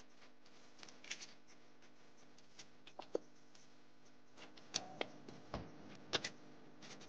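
Faint, scattered taps and crackles of hands handling crisp fried tacos on a plate while topping them, a few sharp clicks a second or so apart.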